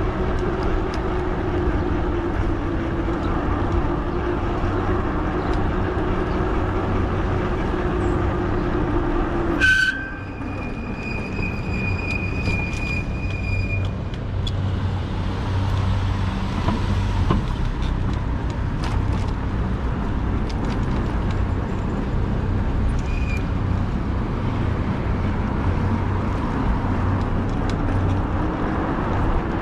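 Fat-tire e-bike riding in traffic: wind and road rumble with a steady motor hum. The hum drops out about ten seconds in at a sharp click, and a thin high tone rings for about four seconds after it. Light rattling clicks follow from a loose camera mount.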